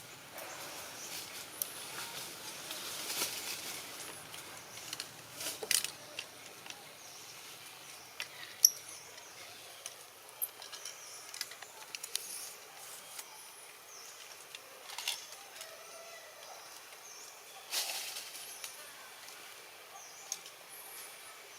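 Outdoor ambience with scattered rustles and sharp clicks, and a few faint, short high chirps.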